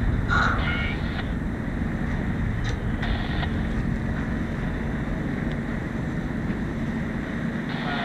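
Steady wind noise on the microphone aboard a sailboat under spinnaker, with a faint steady hum underneath and brief faint voices in the first second.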